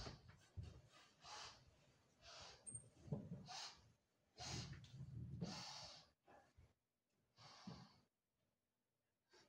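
A person breathing heavily, with loud breaths in and out about a second apart and one longer breath around the middle.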